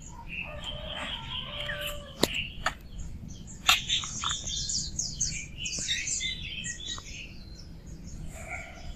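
Tiny kittens mewing and squeaking in high, thin voices, with a few sharp taps between about two and four seconds in.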